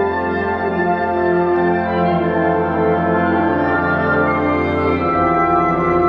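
A wind symphony playing full, sustained chords over a held low bass note, with the harmony changing about five seconds in.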